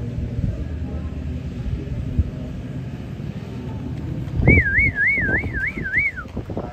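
A person's high whistle, warbling up and down about three times a second for nearly two seconds and ending in a falling slide, starting a little after halfway. Under it runs a steady low rumble, with a few low thuds as the whistle begins.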